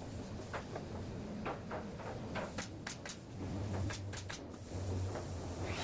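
Scattered sharp knocks and clicks of wood being handled and fitted during assembly, busiest around the middle, over a low hum that swells now and then.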